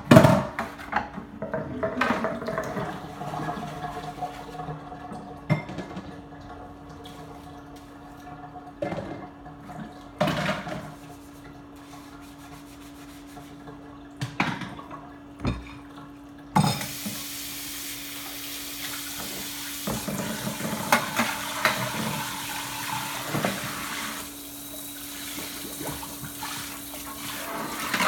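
Dishes and pans clinking and knocking in a kitchen sink as they are washed by hand. About halfway through, the tap comes on and water runs steadily into the sink under the clatter, with a steady low hum underneath throughout.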